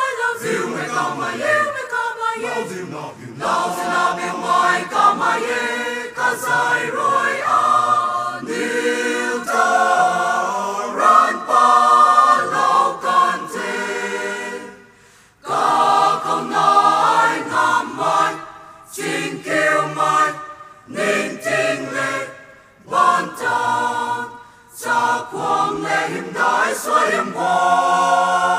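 Mixed choir of men's and women's voices singing a cappella in harmony, in phrases with short breaks between them and a brief pause about fifteen seconds in.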